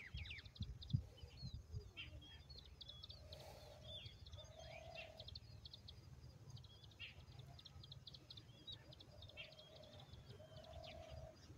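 Faint birdsong: many short high chirps and twitters, with a few short lower calls in between.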